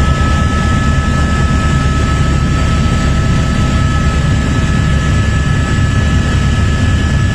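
Helicopter in flight, heard from on board: steady loud engine and rotor noise with a fast low flutter and two steady high-pitched whines.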